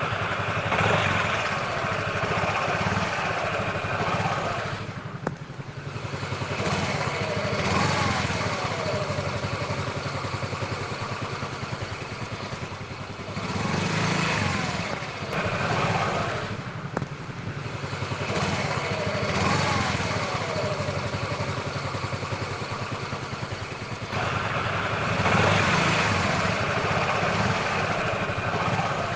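Small single-cylinder scooter engine running, revved about five times a few seconds apart; each rev rises and falls in pitch between spells of steady running.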